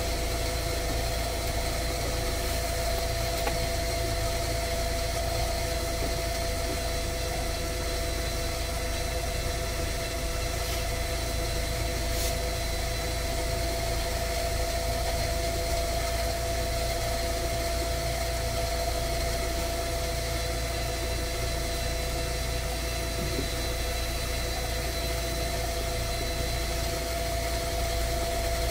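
Yokkaichi Asunarou Railway 260 series electric train standing at a station, its onboard equipment humming steadily: two steady mid-pitched tones over a low drone.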